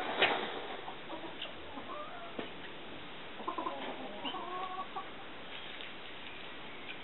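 Domestic turkeys: a brief rush of noise just after the start, then a few soft, wavering clucking calls around the middle.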